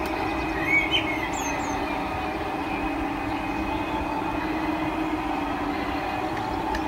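G-scale model trains running on garden railway track: a steady electric motor hum with the rumble of the wheels rolling on the rails.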